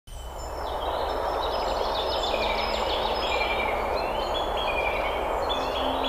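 Forest stream rushing over rocks in a small cascade, a steady hiss of water, with several songbirds singing over it: high whistled phrases and a quick trill of repeated notes about two seconds in.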